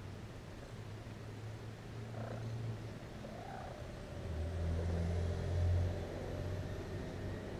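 A cat purring steadily close to the microphone, growing louder a little past the middle, with two faint kitten mews in the first half.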